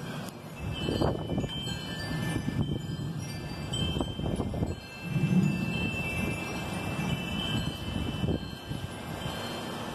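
Wind chimes ringing in storm gusts, several high, thin tones overlapping and fading, over a low, gusty rush of wind that swells and drops a few times.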